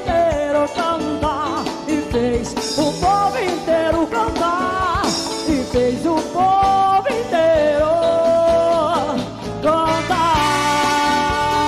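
Big band playing live, with horns over drum kit, bass, guitar and hand percussion. About ten seconds in, the band settles on a long held chord.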